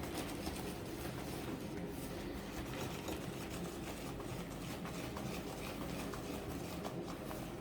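Cake batter thickened with semolina being mixed in a bowl: a steady run of small scratchy clicks from the utensil working through the batter and against the bowl, over a low hum.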